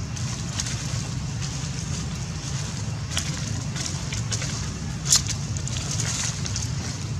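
Dry leaf litter crackling and rustling in short snaps as macaques shift about on it, with one sharper, louder snap about five seconds in, over a steady low rumble.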